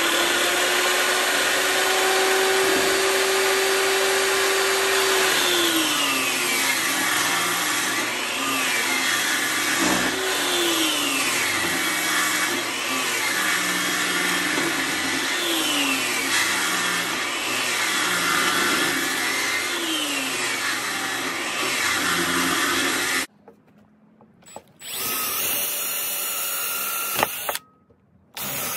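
Table saw running and cutting a wooden board, its motor pitch sagging and recovering about every two seconds as the blade takes the load. About 23 seconds in it cuts off abruptly, and a cordless drill bores into a wooden board in short runs.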